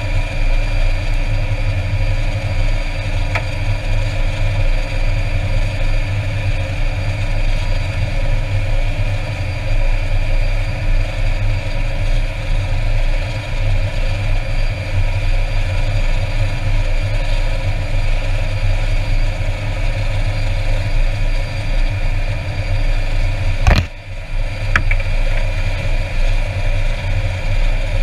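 Air Tractor 402B's Pratt & Whitney PT6A turboprop running steadily on the ground, heard from inside the cockpit: a constant engine drone with a steady turbine whine. A single sharp click about four seconds before the end.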